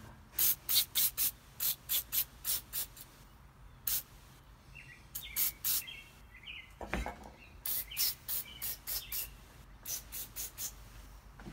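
WD-40 aerosol can sprayed in many short hissing bursts, penetrating oil worked onto the seam and studs of an engine case that the owner suspects is held by corrosion or rust.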